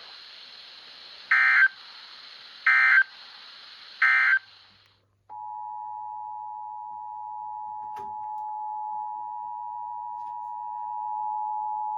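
Emergency Alert System data bursts: three short, shrill digital chirps about a second and a half apart over a faint hiss, the end-of-message code. After a brief silence the EAS two-tone attention signal (853 and 960 Hz) comes on about five seconds in and holds steady, with a faint click partway through.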